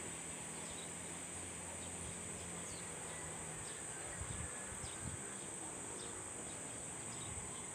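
Steady high-pitched insect drone with faint short chirps, and a couple of soft knocks about four and five seconds in.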